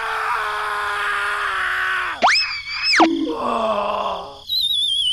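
A string of pitched cartoon-style sound effects. First a voice-like cry held steady for about two seconds, then a short high whistle, then a lower cry. Near the end a wavering whistle starts sliding down in pitch.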